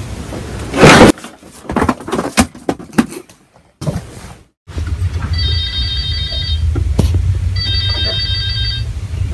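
Telephone ringtone ringing twice in the second half, each ring about a second long, over a steady low hum. Before that, a loud sudden noise about a second in, followed by scattered knocks.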